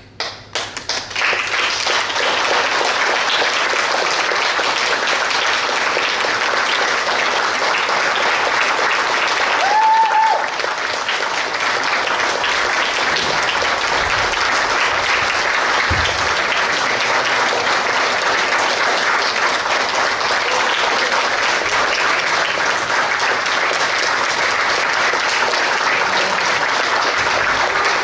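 Audience applauding steadily, with one short high tone about ten seconds in.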